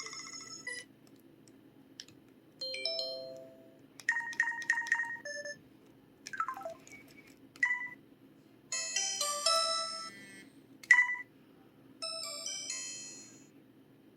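LG-KC3500 mobile phone's built-in sound effects played one after another: short electronic chimes and beeps about a second long each, with pauses between them, including a quick falling sweep about six seconds in.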